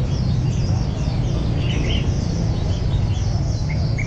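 A chorus of caged red-whiskered bulbuls calling: rapid short falling chirps, with a few louder calls about two seconds in and again near the end, over a steady low rumble.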